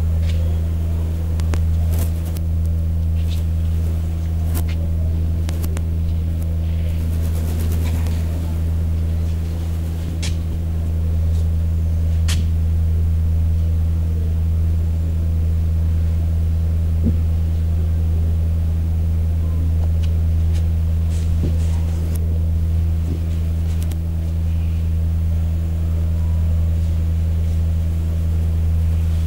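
A loud, steady low hum runs throughout, with a few faint clicks scattered over it.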